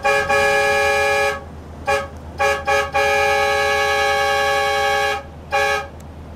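Train horn sounding a run of warning blasts at a level crossing. A long blast cuts off about a second and a half in, followed by three short toots and another long blast of about two seconds. A last short toot comes near the end.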